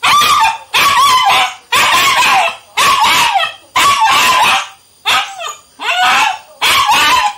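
German shepherd puppy, about three months old, barking repeatedly: a run of about eight high-pitched barks, each sliding down in pitch at its end.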